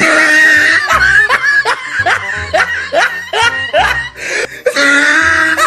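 Loud laughter: a long drawn-out laugh, then a quick run of short "ha" bursts about three a second, and another drawn-out laugh near the end, over background music with a steady beat.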